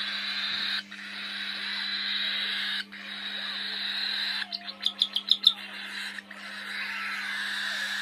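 A baby parrot begging to be fed: a harsh, hissy, continuous begging call in long stretches broken by short pauses every couple of seconds, with a quick run of about eight sharp chirps near the middle, the loudest part. A steady low hum runs underneath.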